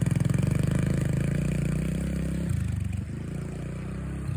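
A vehicle engine running close by with an even pulsing beat. It eases off and gets quieter about two and a half seconds in.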